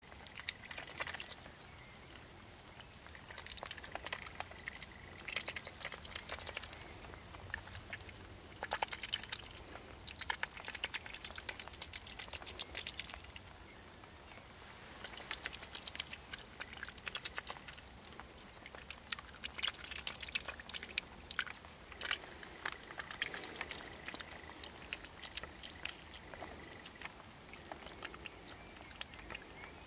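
A domestic duck dabbling, its bill sifting and slurping through shallow water as it feeds, in bursts of quick wet clicks a few seconds long with short pauses between.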